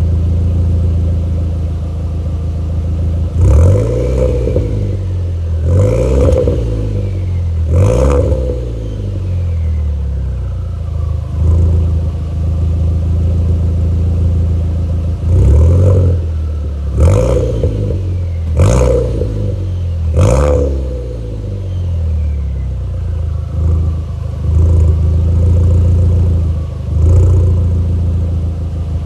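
A 1.8T turbocharged four-cylinder engine idles and is revved in short blips, in two bursts. After each blip a faint whistle falls in pitch as the turbocharger spools down.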